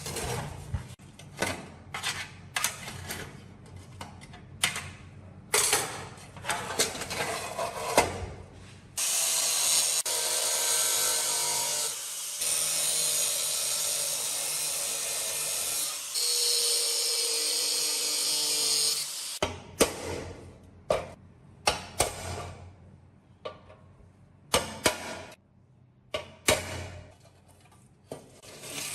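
Metal parts clicking and knocking as they are worked by hand, then a power tool runs steadily for about ten seconds in three stretches, followed by more scattered knocks.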